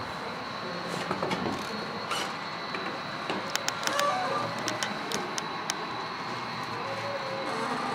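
HO scale model train running on the layout: a steady mechanical hum with scattered sharp clicks, bunched around the middle.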